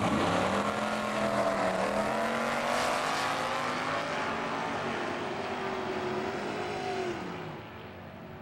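Two drag racing cars launching off the start line together and accelerating hard down the strip, their engines revving with pitch rising as they pull away. The engine sound fades into the distance near the end.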